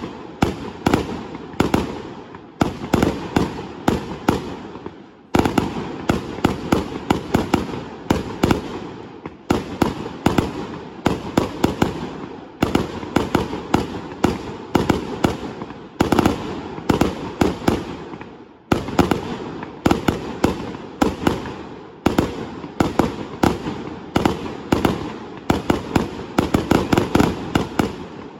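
A fireworks display going off in a dense, rapid barrage of sharp bangs and cracks, many per second. It comes in waves that start abruptly every few seconds and then fade before the next volley.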